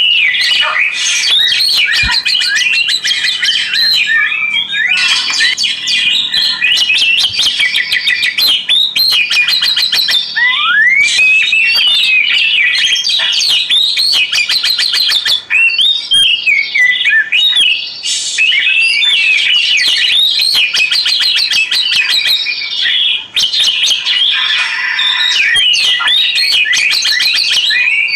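Oriental magpie-robin (kacer) singing without pause: a loud, varied song of whistled phrases, quick rising and falling glides and bursts of rapid chattering trills.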